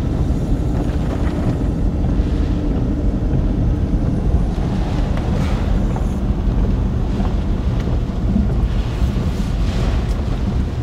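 Steady loud rumble of wind buffeting the microphone in a car driving through hurricane rain, with a faint steady hum that stops about halfway through.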